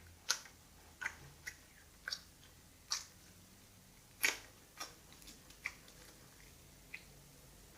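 Homemade borax slime being kneaded and stretched by hand, giving a string of irregular, sharp wet clicks and pops as the sticky slime pulls off the fingers.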